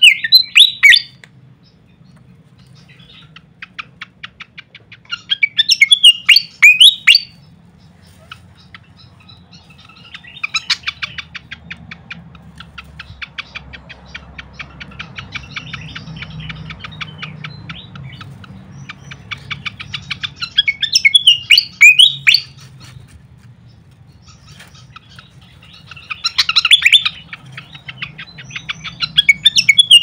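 Malaysian pied fantail singing: loud bursts of rapid, squeaky, jumping notes come several times, joined by quieter runs of fast ticking notes. A faint low hum lies underneath.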